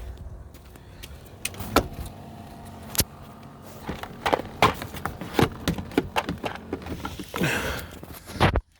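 Clicks, knocks and rustling of the headrest and monitor parts being handled and pushed into place inside a car, with one sharp knock about three seconds in and a longer scraping rustle near the end.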